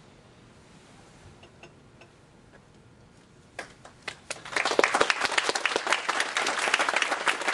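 Audience applauding: a couple of single claps about three and a half seconds in, then many hands clapping together, loud, through the rest.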